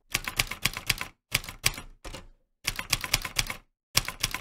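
Typewriter typing sound effect: rapid key clicks in runs of about a second, separated by brief pauses.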